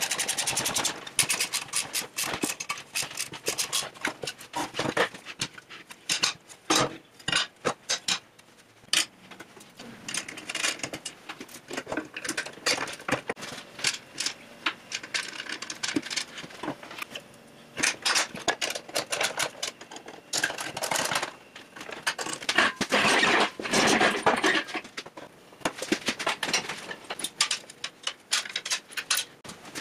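Irregular clicks, knocks and scraping of hand work in a workshop, coming in dense runs with short lulls.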